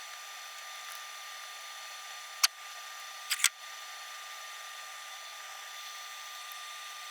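A few sharp small clicks of hand work on the motor's parts, one about two and a half seconds in and a quick pair about a second later, over a steady faint hiss with thin high whine tones from the recording.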